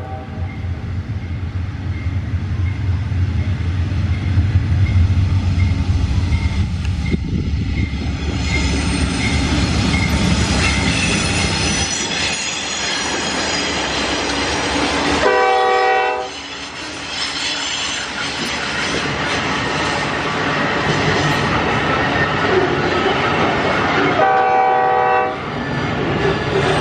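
Diesel freight locomotives passing close with a deep engine rumble in the first several seconds, then loaded flat wagons rolling by with wheel clatter and squeal. The lead GE C30-7's Nathan K5LA air horn sounds twice: a short blast about halfway through and another near the end.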